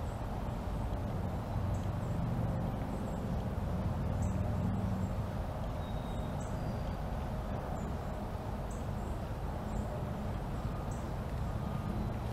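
Steady low rumble of distant road traffic, swelling a little a couple of seconds in, with short high chirps every second or two.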